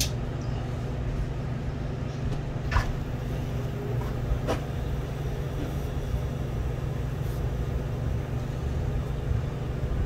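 A 5,000-watt Jupiter power inverter switched on and running under load: a steady low electrical hum, with two light clicks about three and four and a half seconds in.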